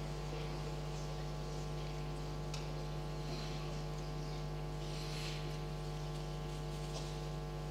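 Steady electrical mains hum, with faint arena background noise.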